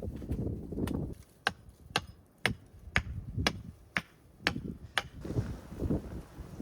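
A tool striking wood at a steady pace, about two sharp knocks a second, nine in all. A low rumbling noise comes before and after the knocks.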